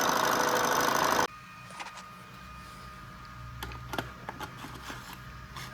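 Lathe running a boring cut in a router base's bore, a steady machine noise with constant tones that shuts off abruptly about a second in. A few faint clicks and light knocks follow.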